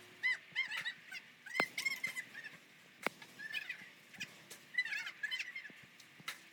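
Birds calling: a string of short, repeated chirps, with two sharp clicks in between.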